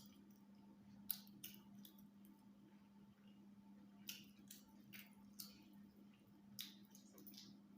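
Faint wet mouth smacks and clicks of someone chewing a mouthful of rice and stew, about eight of them, over a steady low hum.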